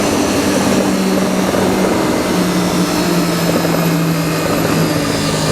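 Triumph Daytona 675R's inline three-cylinder engine running steadily at cruising speed under heavy wind noise. The engine note drops a little about two seconds in and again near the end.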